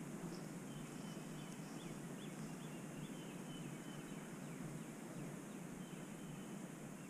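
Faint, steady low wind rumble over the open ground, with thin high chirps that come in short runs now and then.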